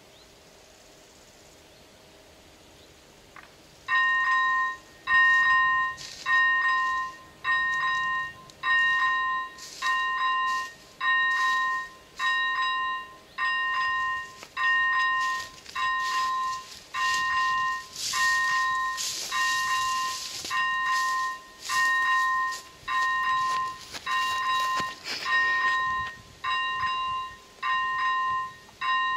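Level-crossing warning bell starting up about four seconds in: the ZV-01 electronic bell strikes a ringing two-tone ding roughly once a second, the signal that a train is approaching the crossing.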